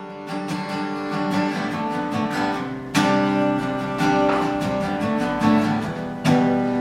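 Acoustic guitar playing the instrumental intro of a song: a quick, even run of picked notes, with a new chord struck about three seconds in and again near the end.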